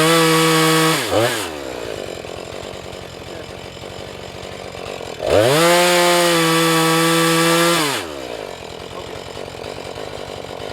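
Husqvarna 435 two-stroke chainsaw idling, opened to full throttle twice for short cuts into a sycamore log: a brief burst with a quick blip at the start, and a longer steady one of about two and a half seconds midway. These are small feathering cuts along the log, made to check it for tension and compression.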